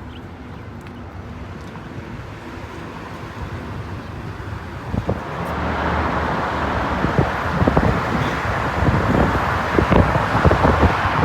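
Road traffic noise with wind buffeting the microphone, growing louder about five seconds in.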